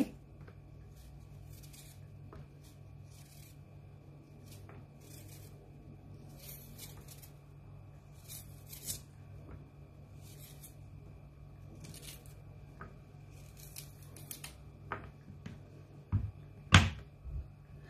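Small kitchen knife paring the skin off a piece of fresh ginger: a series of short, dry scrapes about every second or so, over a faint steady low hum. A sharp knock sounds near the end.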